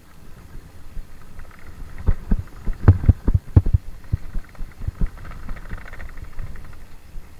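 Mountain bike knocking and rattling over a bumpy dirt trail, picked up by a camera mounted on its handlebars, with a cluster of heavy thumps about two to four seconds in over a steady low rumble of tyres on dirt.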